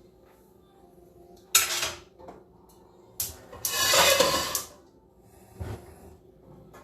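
Metal pot being handled on a stovetop: a sharp clank about a second and a half in, a longer scraping rattle around four seconds in, and a light knock near the end.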